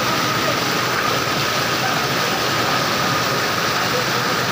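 Heavy rain falling steadily, a dense even hiss, with water pouring off a roof edge and splashing onto the pavement.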